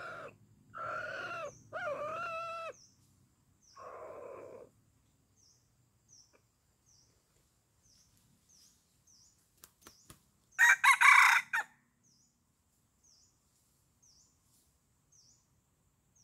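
Rooster crowing: a long call in several pitched parts that ends a few seconds in, followed by a shorter call. About ten seconds in comes a much louder, harsher call lasting just over a second. Faint high chirps repeat about twice a second in between.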